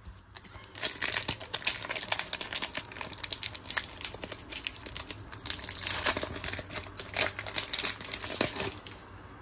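Foil wrapper of a Pokémon Paldea Evolved booster pack being torn open and crinkled by hand, a dense run of sharp crackles lasting about eight seconds.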